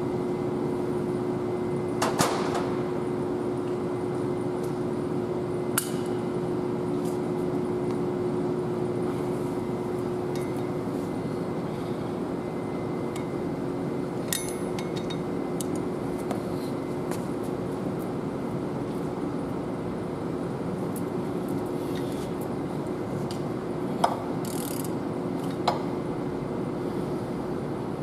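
Steady workshop hum with a constant droning tone, broken by a few sharp metallic clicks and clinks from a wrench on the camshaft gear bolts as they are loosened and retorqued.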